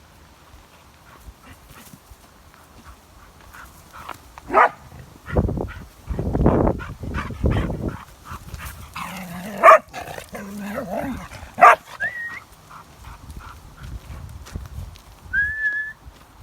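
Dog barking a few times in short, sharp barks, the loudest two near the middle, with a few seconds of low rumbling noise just before them.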